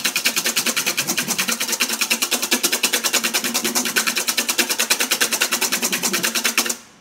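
Wire balloon whisk beating egg whites by hand in a stainless steel bowl, a fast even rhythm of about ten strokes a second that stops suddenly near the end. The whites are being brought to stiff peaks and are very close.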